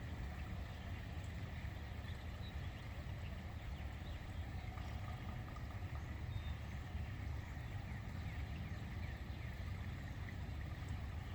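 Creek water pouring over a small dam in a steady, even low rush, with faint bird chirps scattered through it.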